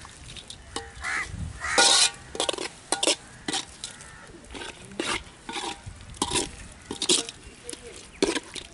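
Metal ladle scraping and knocking against a large metal pot in irregular strokes as mutton pieces are stirred and fried in spice masala, with a low sizzle underneath.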